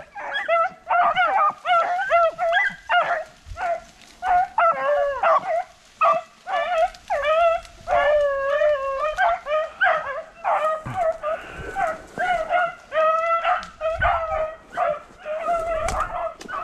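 Pack of beagles baying and howling in a continuous run of drawn-out, pitch-bending calls, several voices overlapping at times: hounds giving tongue while running a rabbit's scent trail.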